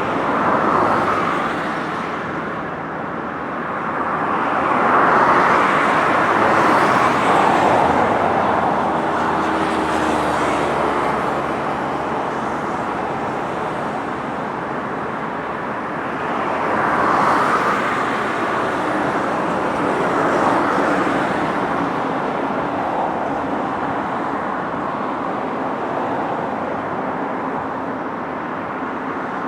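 Road traffic passing on a bridge: a steady rush of tyre and engine noise that swells and fades as vehicles go by, several times.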